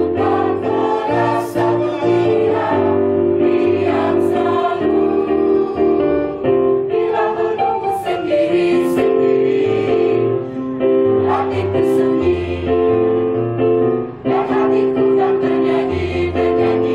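Mixed choir of men and women singing together in harmony, holding long notes in chords that change every second or two.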